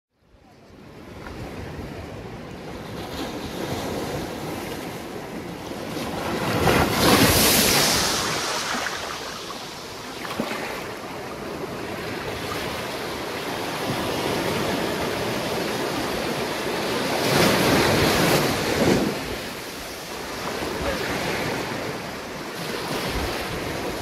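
Sea waves breaking on a sandy beach: a steady wash of surf that fades in at the start, with two louder crashes about ten seconds apart.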